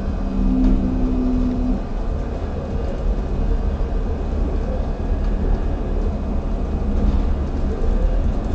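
Ride noise inside a moving city transit bus: a steady low rumble of engine and road. A low steady hum sounds over it for about the first two seconds, then fades.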